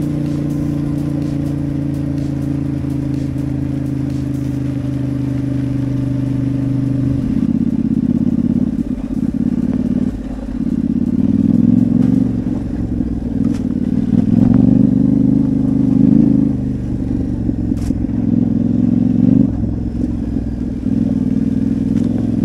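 Yamaha Ténéré 700's parallel-twin engine heard from the moving bike. It holds a steady cruise at first, then from about seven seconds in it revs up and falls back repeatedly with throttle changes.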